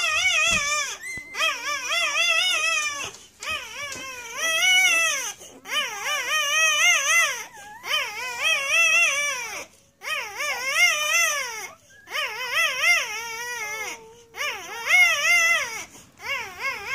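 A newborn Irish setter puppy crying in a string of high, warbling whines. Each cry lasts a second or two, and they come about ten times in a row with short breaks between them.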